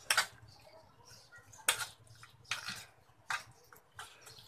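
Metal spoon clinking and scraping against a ceramic plate while mixing chicken pieces in their marinade, about five sharp clinks, roughly one a second.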